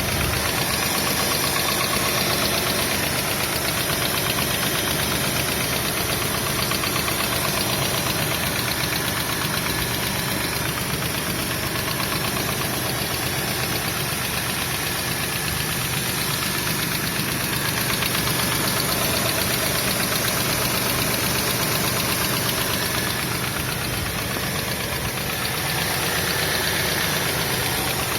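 Engine running steadily with a rapid, even knocking, a knock whose cause is unknown.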